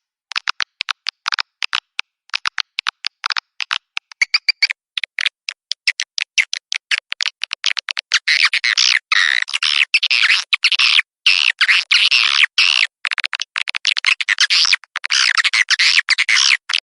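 Swiftlet call track (suara panggil walet), the lure sound played at swiftlet nest houses: a rapid train of short, sharp chirps and clicks with clean gaps between them, turning about eight seconds in to dense, nearly continuous high twittering.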